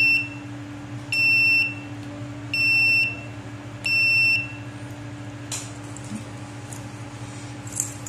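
Small piezo buzzer on an Arduino breadboard circuit sounding four short high beeps, each about half a second long and about a second and a half apart. It is the intruder alarm for an unregistered RFID tag.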